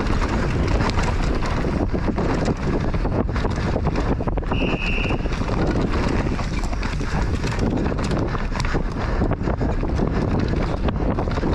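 Downhill mountain bike descending a dirt trail at speed: wind buffeting the mounted camera's microphone over the constant clatter and rattle of the bike and tyres on rough ground. A brief high squeal about four and a half seconds in.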